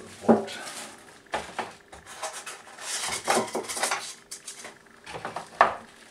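Clatter of a new electric grill's parts being unpacked: a plastic-wrapped metal tray and packaging handled, with a few sharp knocks and a busier rustling stretch in the middle. The loudest knocks come just after the start and near the end.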